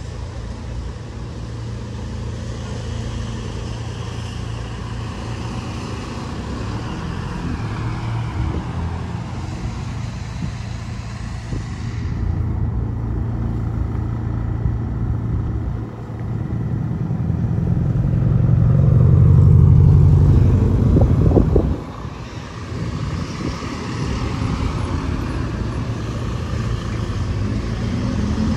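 Road traffic: engines and tyres of vehicles driving past. One vehicle passes close and loudest a little past the middle, with a deep engine hum that cuts off suddenly.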